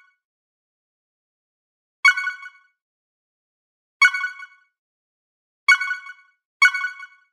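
A messaging-app notification chime, four times: two about two seconds apart, then two close together near the end. Each is a short bright ding that dies away within about half a second.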